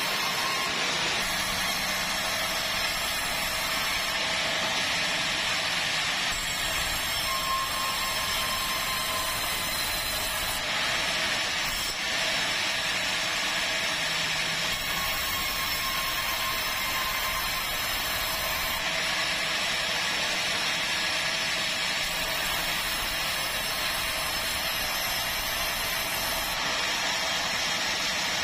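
Sawmill band saw running and ripping planks lengthwise to edge them straight: a steady loud mechanical din with a high cutting hiss that changes every few seconds as boards are fed through.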